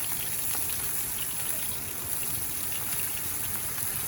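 Chicken pieces sizzling steadily in hot oil in a frying pan on high heat, with a few faint spatters.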